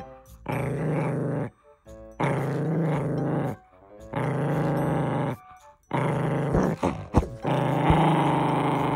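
Maltipoo (toy poodle × Maltese) growling in about five long, low growls separated by short pauses. She is guarding a plastic gachapon capsule held under her chin and won't give it up.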